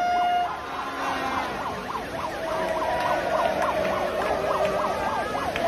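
A held horn tone cuts off about half a second in; then a siren yelps, its pitch sweeping up and down quickly about two to three times a second over a steady horn-like tone.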